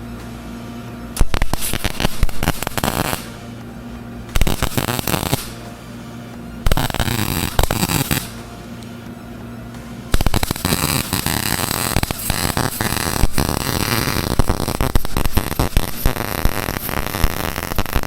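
Welding arc crackling and sputtering in four bursts: three short runs of one to two seconds, then one long run of about eight seconds, as the repair pieces for a steel fuel-tank strap are welded. A low steady hum sounds between the runs.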